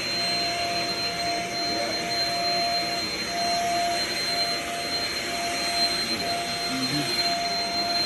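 Shark stick vacuum cleaner running steadily: an even whir of motor and airflow with a high steady whine and a lower steady hum over it.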